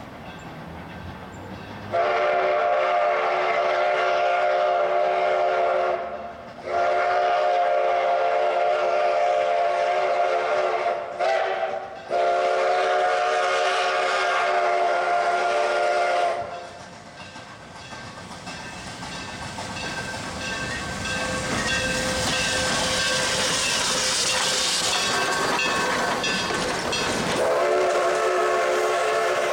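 Steam whistle of Durango & Silverton No. 480, a K-36 2-8-2 steam locomotive, blowing its chime: long, long, short, long, the grade-crossing signal. A rising rush of steam and running noise follows as the engine passes close, and the whistle sounds again near the end.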